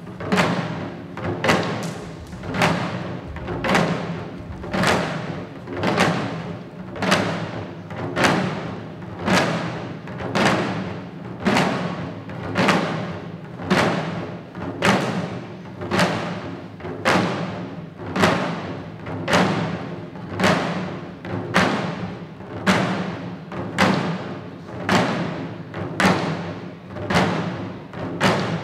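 Shishi-odori deer dancers beating the small taiko drums slung at their fronts in a steady, even rhythm, a heavier stroke about once a second with lighter strokes in between.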